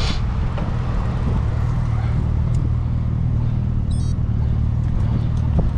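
Road traffic at a city intersection: a steady low rumble of car engines. A brief high-pitched tone sounds about four seconds in.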